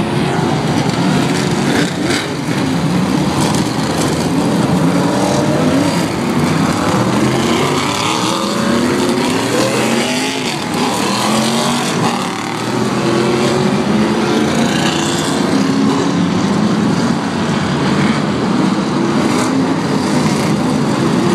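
A pack of stock car engines racing on a short oval, several running at once, their pitch rising and falling as the cars pass close by and pull away. The sound is loud and continuous.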